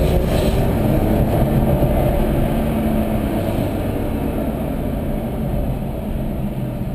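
Porsche engine running at a steady speed under a continuous rumble of road noise, growing a little quieter over the last few seconds.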